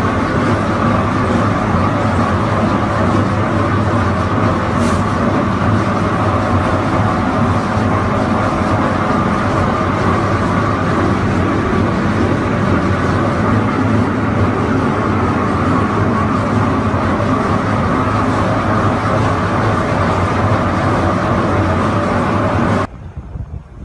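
Tub grinder running at idle, empty: a loud, steady mechanical running sound with a low even hum. It cuts off suddenly near the end.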